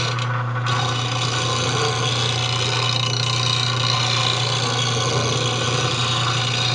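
Bench grinder running with a steady motor hum while a bowl gouge's bevel is ground on the wheel: a continuous hiss of steel on the stone as the tool is rolled across it, thinning briefly about half a second in.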